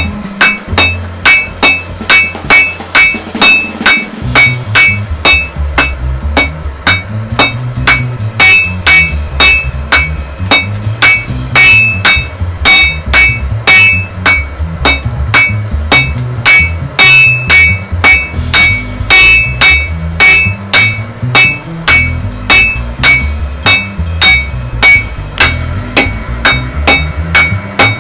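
Hand hammer striking hot steel on an anvil in a steady rhythm of about two blows a second, each blow ringing briefly. Background music with a bass line plays underneath.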